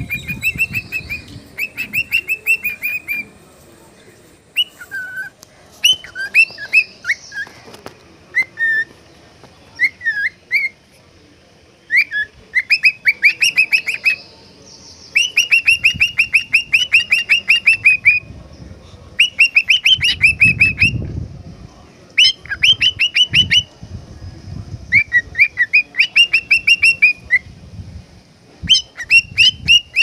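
Lutino cockatiel singing: bursts of fast, repeated high chirping notes, each burst lasting one to three seconds, with short pauses between.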